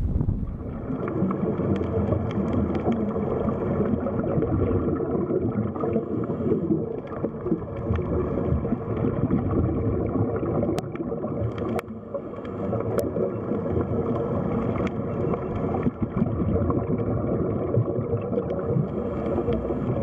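Steady, dense rumbling water noise with some gurgling.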